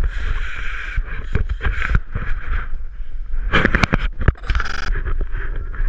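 Snow tubes sliding and scraping over packed snow, with low wind rumble on the microphone and jacket fabric rubbing against it; the loudest rubbing and scraping comes in a cluster a little past the middle.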